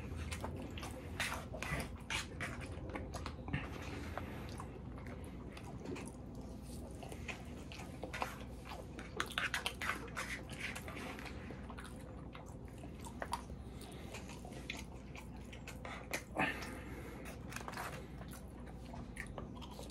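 A person chewing food, with scattered small clicks and crunches, while plastic forks click and scrape against a foam takeout container.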